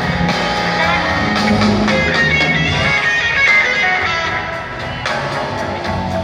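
Live blues band playing a slow blues, with electric guitar lead lines, some notes bent or sliding in pitch, over bass and drums.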